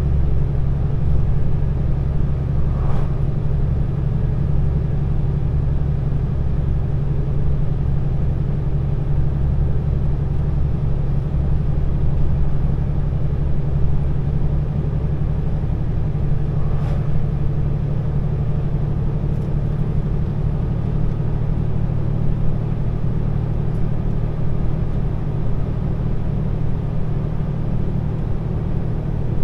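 Truck engine running steadily while driving, a low even drone that holds the same pitch throughout with no change in revs.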